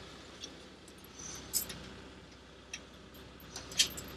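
Light metallic clinks of a steel hitch pin and its small safety chain being handled and worked into the winch's lower hitch bracket: a few scattered clinks, the loudest near the end.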